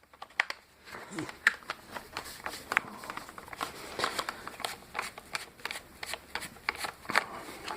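A screw being backed out of a washing machine drain pump's plastic housing by hand: a run of small, irregular clicks and ticks from the screwdriver and the handled plastic.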